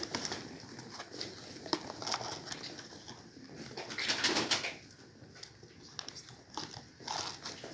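Domestic pigeons cooing, with scattered sharp clicks and a louder stretch of sound about four seconds in.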